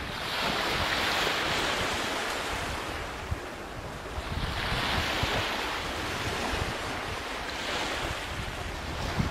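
Ocean surf: waves breaking and washing in, the rush swelling and fading three times, every three to four seconds.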